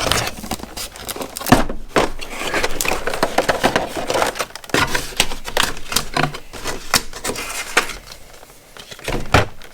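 A knife kit's cardboard box and packaging being handled and opened: a busy run of crackles, clicks and knocks, with a sharp knock about a second and a half in and another near the end.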